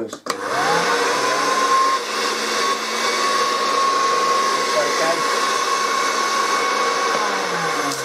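Hoover Dustette Model 100 hand vacuum's brushed motor on a bench test run, switched on at the mains. It spins up with a rising whine, runs steadily with a whirring rush of air, then is switched off near the end and winds down.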